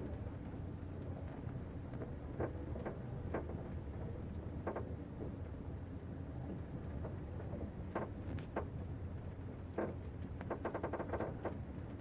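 Kia Sportage squeaking from the rear: short squeaks come one at a time at irregular intervals, then in a quick run near the end, over the steady low rumble of the car.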